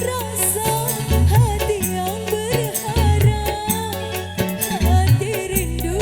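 Music: a folk-style song with a wavering, ornamented melody over a low bass pattern that repeats about once a second.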